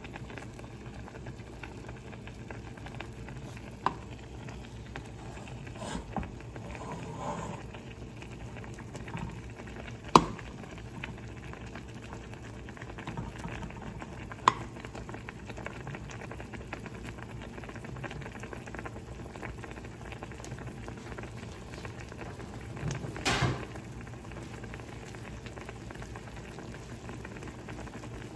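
Ramen noodles, broth and an egg simmering in a pan on the stove, a steady bubbling. A few sharp knocks break through, the loudest about ten seconds in, with a short cluster of them near the end.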